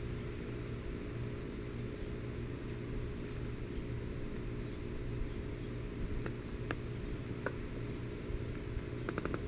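Steady low hum with an even background hiss, and a few faint short ticks in the second half and just before the end.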